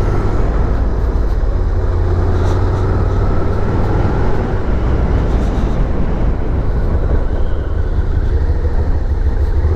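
Suzuki SV650's 645cc V-twin engine running as the bike is ridden, with a heavy, steady wind rumble on the microphone.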